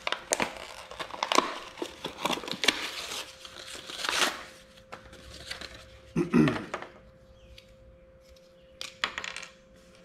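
Clear plastic blister pack of an epoxy syringe being torn and pried open: a run of crackling, crinkling and tearing plastic for about five seconds, a short louder noise about six seconds in, then a few more plastic clicks near the end.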